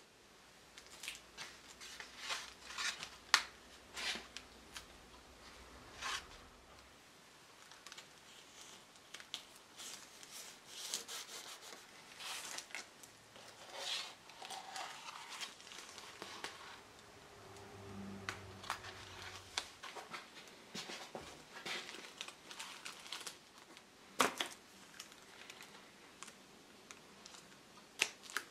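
Archival linen tape and brittle old backing paper being handled and pressed down by hand on a wooden mirror back: intermittent rustling, crinkling and rubbing, with scattered sharp clicks.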